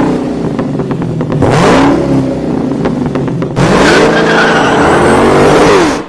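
Dodge Charger Hellcat's supercharged V8 accelerating hard, its revs climbing and dropping in three surges before cutting off near the end.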